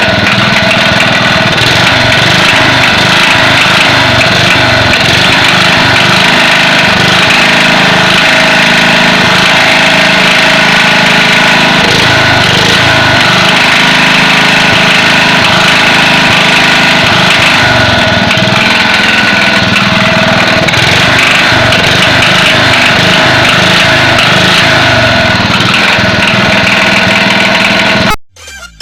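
Restored Daeheung DLG 3500 generator engine running steadily at a constant speed, loud and close. It cuts off suddenly near the end.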